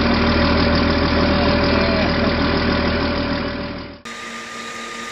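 Engines of armoured military trucks idling steadily, with a constant low drone and several fixed tones. The sound cuts off suddenly about four seconds in, leaving a faint steady hum.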